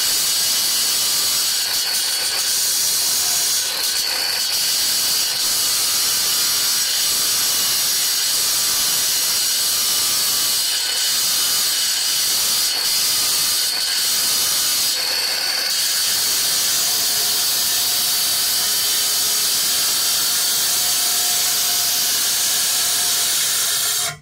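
Handheld electric marble cutter with a diamond blade, water fed onto it, cutting through a marble slab: a loud, steady high-pitched whine over a hiss. It stops abruptly at the end.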